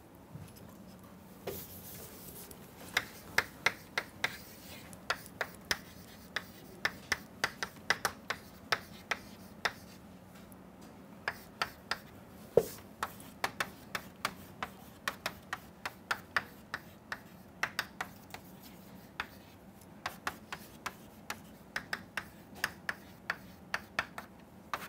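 Chalk tapping on a blackboard as figures are written: many short, sharp clicks in quick irregular runs, with a short pause midway, over a faint steady hum.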